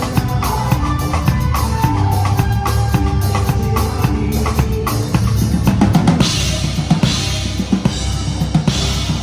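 Pearl Reference drum kit played over a band track with pitched instruments: steady kick, snare and tom strokes. About six seconds in, cymbals come in and ring in repeated crashes.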